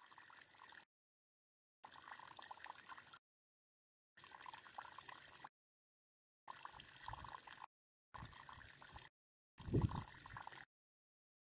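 Quiet trickling, gurgling water heard in six short pieces of about a second each, with gaps of dead silence between them. The last piece, near the end, is the loudest and carries a low thump.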